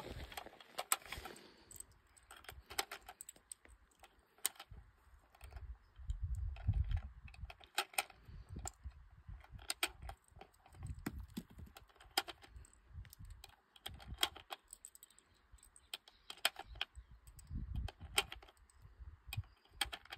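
Irregular light clicks and small metallic rattles of an AR-15 rifle being handled, with a few low rumbling bursts in between.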